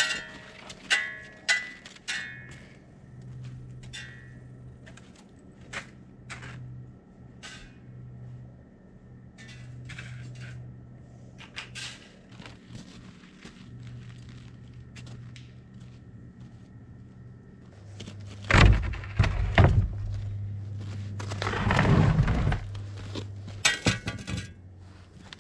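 Repeated knocks and clanks of hard objects, the first few followed by a brief ringing tone, over a low steady hum. Two louder, longer bursts of noise come near the end.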